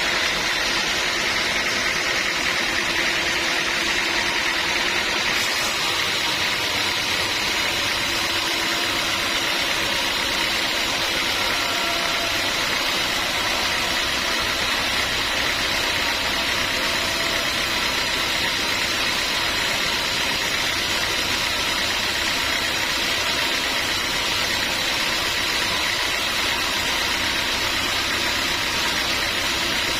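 Sawmill machinery running steadily, an even mechanical noise with a constant high whine; a brighter hiss joins about five seconds in.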